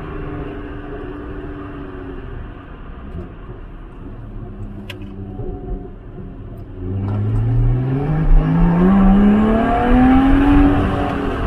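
Lotus Exige sports car engine, quieter and lower for the first few seconds, then accelerating hard from about seven seconds in, its pitch climbing steadily for about three seconds before it levels off.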